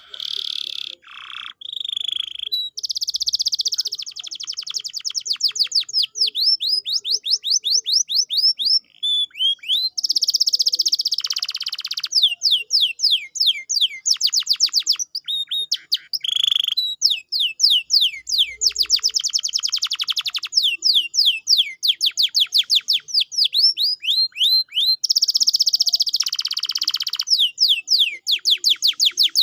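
Domestic canary singing a long continuous song: fast runs of repeated, quickly falling notes alternating with buzzy rolls.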